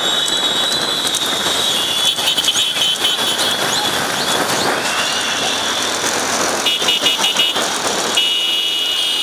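Motor vehicles running at speed, with a dense rushing noise throughout. Over it, a shrill high-pitched tone sounds steadily at first, then in quick pulses about seven seconds in, and steadily again near the end.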